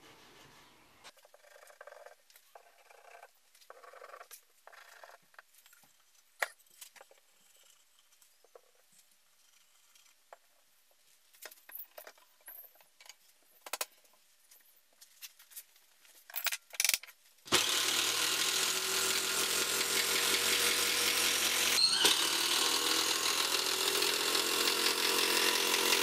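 A few faint clicks and knocks of wood and clamps being handled. Then, about 17 seconds in, a cordless driver starts suddenly and runs steadily, driving long 150 mm wood screws into the pine frame joints, with a brief pause a few seconds later.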